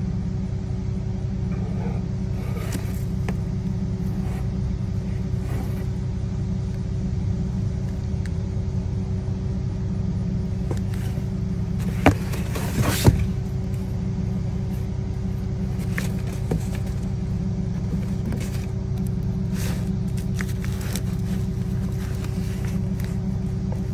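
A steady low rumble with a constant hum, like a motor running nearby. A couple of sharp knocks about halfway through as the new starter motor is handled and set down, with a few fainter handling clicks around them.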